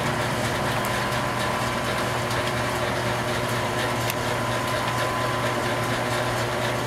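Overhead wrought iron line shaft with cast iron pulleys running under electric motor drive: a steady mechanical hum with a thin high whine and a few faint light ticks.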